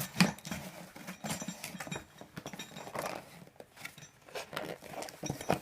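Packaging being handled and opened: irregular rustling and scraping with scattered knocks and light clinks, a sharp knock just after the start being the loudest.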